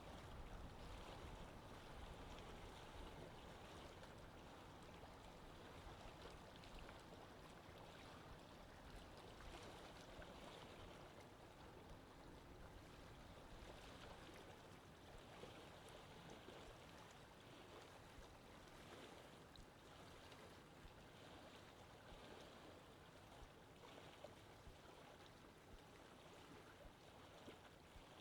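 Faint, steady sea water washing and lapping, with no clear engine note.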